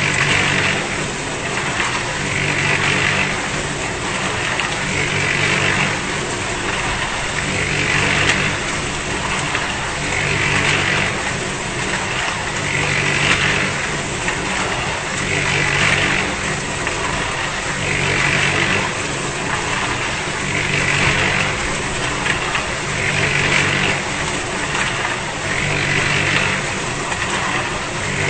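Concrete mixer running steadily, its drum turning with a regular swell in the sound about every two and a half seconds.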